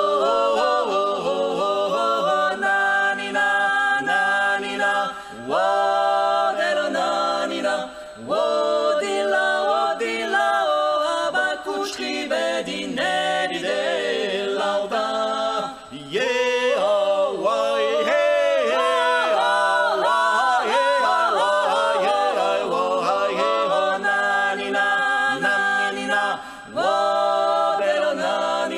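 Three voices, two women and a man, singing a Georgian polyphonic song a cappella, holding close-harmony chords, with short breaks between phrases.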